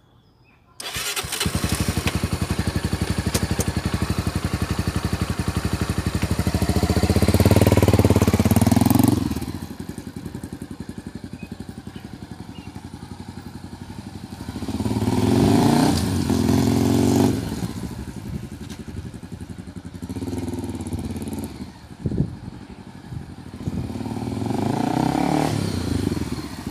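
Motorcycle engine running, growing louder in several stretches as the rider pulls away and rides off, with quieter running in between. Each louder stretch is the clutch being let out with light throttle at the clutch's engagement point.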